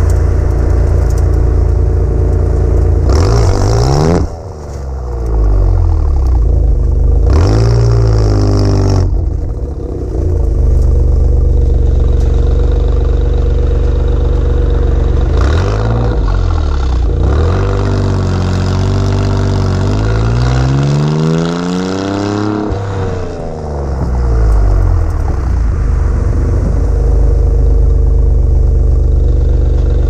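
Alfa Romeo Giulia QV's 2.9-litre twin-turbo V6 heard at its stock exhaust tailpipes while driving, the revs rising and dropping several times. It settles into a steady idle over the last few seconds.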